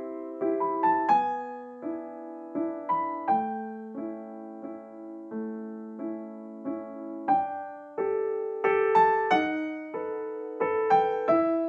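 Background piano music: a melody of struck notes and chords, each note ringing and fading before the next.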